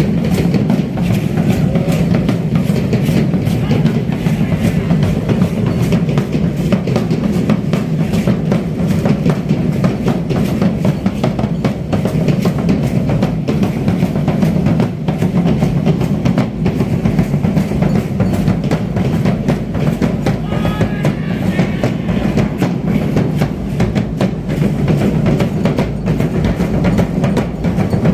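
Festival dance drumming: bass drum and snare drums playing a dense, unbroken beat.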